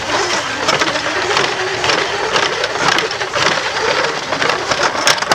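Plastic hose reel cart being hand-cranked to wind in a garden hose: a continuous rattling with many irregular clicks that stops abruptly at the end.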